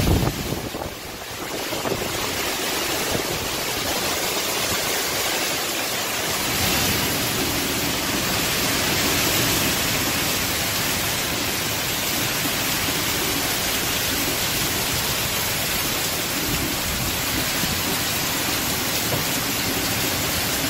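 Heavy tropical-storm rain pouring down in a steady, dense hiss, with a brief low rumble right at the start.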